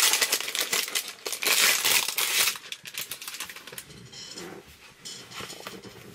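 Packaging around a wall scroll crinkling loudly as it is unwrapped by hand. After about two and a half seconds it dies down to softer rustles and light clicks.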